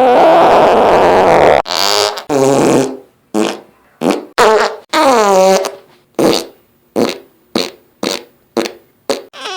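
A string of fart sounds: one long, rough fart, then about a dozen short ones in quick succession, several of them falling in pitch.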